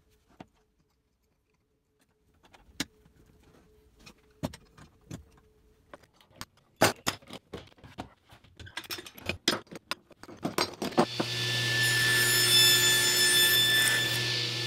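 Metal clamps and wood blocks clicking and clattering as they are handled, growing busier about halfway through. About eleven seconds in, a table saw starts and runs with a steady whine.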